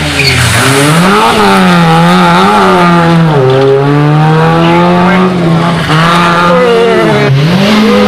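Rally car engine driven hard through a bend, the revs climbing and dropping several times with throttle lifts and gear changes, then held fairly steady for a few seconds. Near the end the sound cuts to another rally car accelerating.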